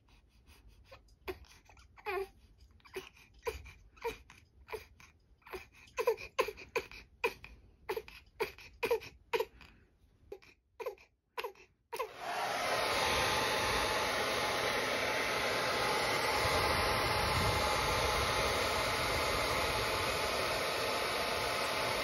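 A one-month-old baby crying in short, repeated wails that grow louder over the first twelve seconds. About halfway through, a hair dryer is switched on and runs with a steady rushing noise, used as white noise to soothe the baby, and no more crying is heard over it.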